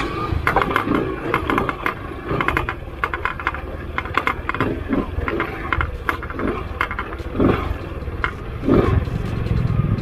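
Off-road motorcycle ridden slowly over bumpy rock and grass, its engine running at low revs with a few brief revs. The bike clatters and rattles repeatedly as it goes over the bumps.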